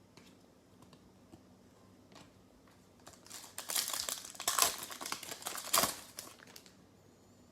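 Foil trading-card pack wrapper crinkling as it is handled and torn open. The crackling starts about three seconds in and lasts about three and a half seconds.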